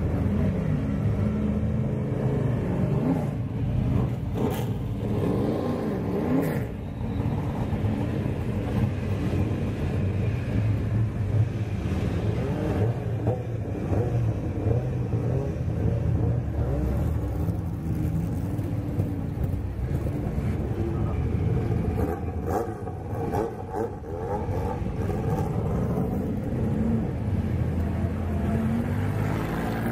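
Several historic racing-car engines running together, idling rough and loud, with throttle blips that swing the pitch up and down a few seconds in and again near the end as cars pull away.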